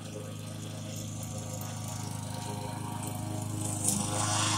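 Walk-behind gasoline lawn mower running steadily with an even engine hum. It grows louder toward the end, where a rushing, hissing noise rises over the hum.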